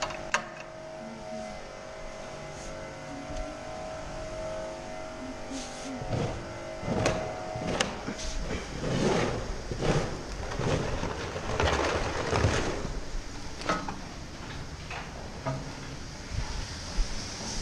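Steady mechanical hum with a held tone, then from about six seconds in a run of irregular scraping and clattering bursts from barn work, with a hiss near the end.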